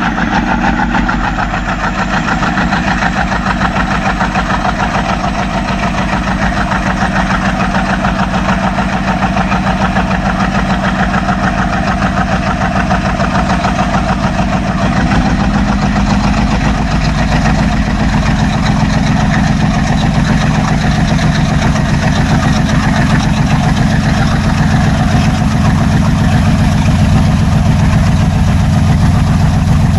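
Twin ALCo diesel locomotives chugging under power, their 16-cylinder ALCo 251 engines giving a fast, steady throb that grows a little louder and deeper in the second half.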